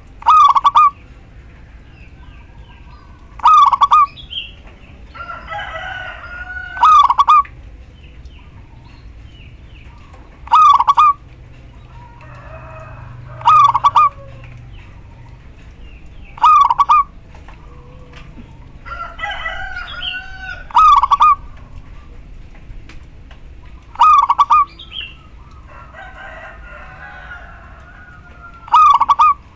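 Female zebra dove (local perkutut) giving short, loud calls about every three to four seconds, nine in all. Fainter bird sounds fill the gaps between them.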